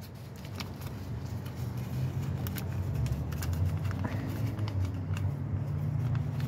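Hands handling char cloth at a small metal tin: a scatter of light rustles and small clicks, over a steady low hum that grows a little louder about halfway through.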